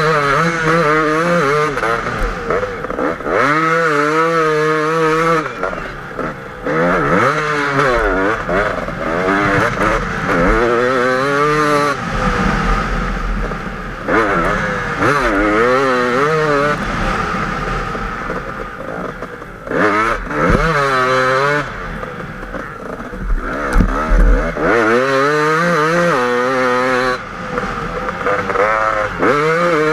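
KTM 250 EXC two-stroke enduro motorcycle engine ridden hard in sand, its pitch rising and falling again and again as the rider opens and shuts the throttle through the gears.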